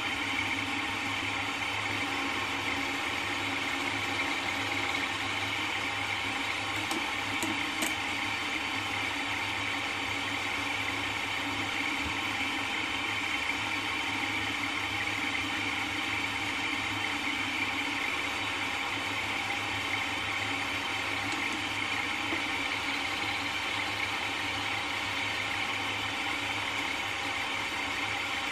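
Milling machine running steadily, its spindle turning an end mill, a steady hum with a whine and a few steady tones.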